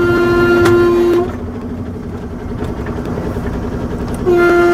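Truck horn sounding twice: a steady single-pitched blast of about a second and a half, then a shorter one near the end, over the low running of the truck's engine as it pulls away.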